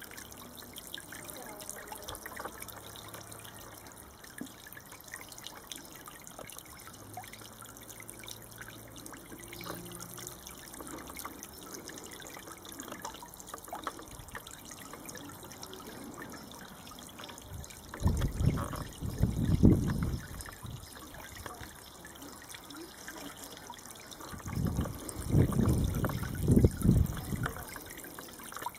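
Solar-powered fountain pump's jet of spray splashing and trickling back into a plastic baby bath full of water. Twice, about two-thirds of the way through and again near the end, a louder low rumble lasting two or three seconds rises over the splashing.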